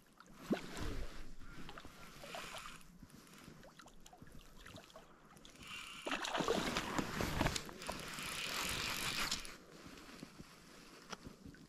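Lake water splashing and sloshing close to the microphone in two spells, a shorter one about half a second in and a longer, louder one from about six seconds in.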